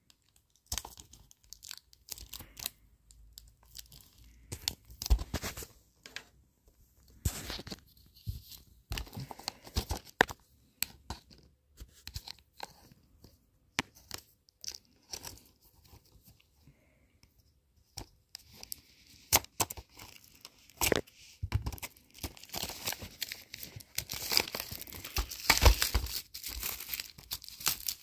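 Fingers scratching and picking at the shrink wrap on a Blu-ray case in scattered short scrapes and clicks. Near the end the thin plastic film tears and crinkles more continuously as it is peeled away.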